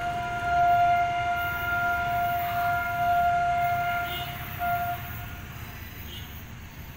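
Locomotive air horn sounding one long, steady single-note blast that breaks off about four seconds in, followed by a short second toot, over a low rumble.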